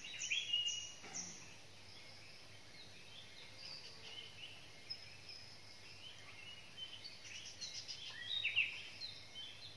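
Several birds chirping and calling over quiet outdoor ambience: many short high chirps and whistled notes, a quick run of ticking notes about three-quarters of the way through, and one louder call shortly after.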